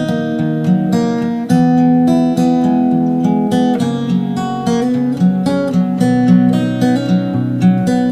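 Background music: acoustic guitar playing a steady, strummed accompaniment.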